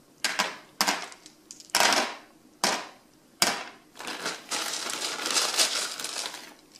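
Small decorative crystals for an electric fireplace ember bed, poured and spread by hand, clattering onto the tray. Five short bursts of clinking come about a second apart, then a longer run of continuous rattling from about four seconds in until near the end.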